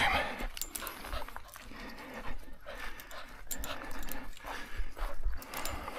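A bull-type dog panting as it walks on a leash, with regular footsteps on a gravel track.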